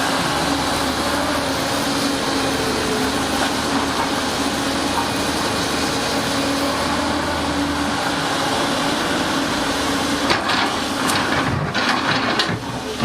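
Diesel engine of a heavy earthmoving machine, a bulldozer or excavator, running steadily. A run of sharp knocks comes in near the end.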